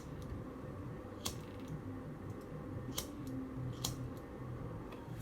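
A lighter being struck four times, sharp clicks spaced a second or two apart, over a faint low background hum.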